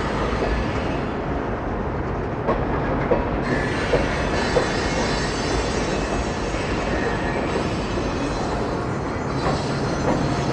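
Freight train of tank cars rolling across a steel girder bridge: a steady rumble with wheels clicking over rail joints every half second or so.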